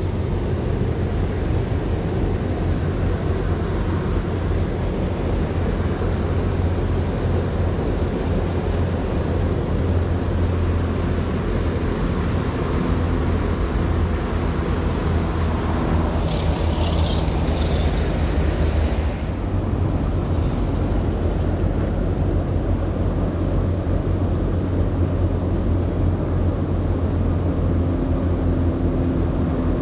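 Electric motor and geartrain of a scale RC rock crawler whining as it crawls over rocks, the whine changing pitch with the throttle, over a constant low rumble.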